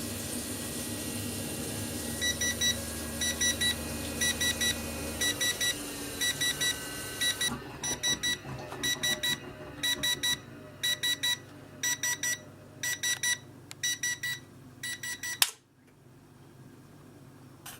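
Rinnai 167 RMF gas boiler beeping its error alarm for error 15: high double beeps, about one pair a second, over the unit's steady hum. The low hum drops out about five seconds in, and about fifteen seconds in a sharp click cuts the beeping off.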